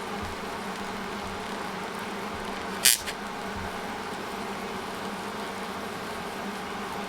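Electric weld seam cleaning machine humming with a steady electrical buzz, and one brief, loud hiss about three seconds in.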